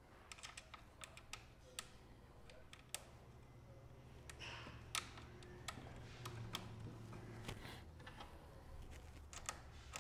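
Faint, irregular light clicks and taps of stainless nuts, bolts and hard plastic parts being handled by hand as a mounting plate is fitted, with a couple of sharper clicks about three and five seconds in.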